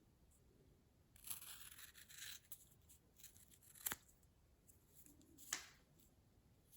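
Faint handling noises: a soft rustle or scrape for about a second beginning a little over a second in, then two light clicks, near the middle and a second and a half later.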